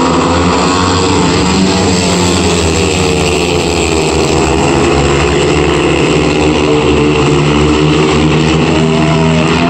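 Four speedway bikes racing at full throttle, their 500cc single-cylinder methanol engines running together in a loud, continuous drone whose pitch rises and falls as the riders go through the bends and along the straights.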